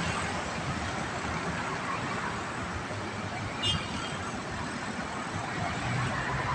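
Steady road traffic noise from cars and motorcycles on a multi-lane road below, a continuous rumble of engines and tyres. About three and a half seconds in there is a brief high-pitched chirp.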